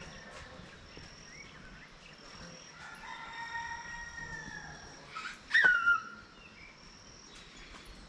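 Rooster crowing: one drawn-out crow starting about three seconds in, then a louder, shorter call about five and a half seconds in that falls in pitch.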